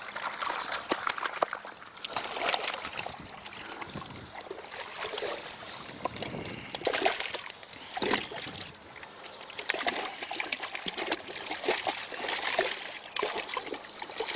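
Water trickling, dribbling and splashing off a keepnet full of fish as it is lowered back into a lake and the fish are let go, with many short, irregular splashes.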